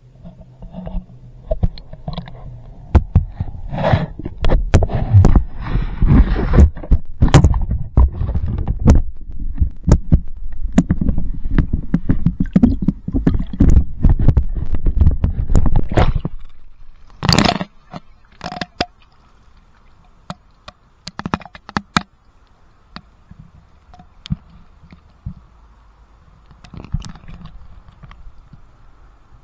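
Water sloshing and gurgling with many knocks and scrapes: a loud, low, churning rumble for about the first half, then a single sharp knock and scattered quieter clicks.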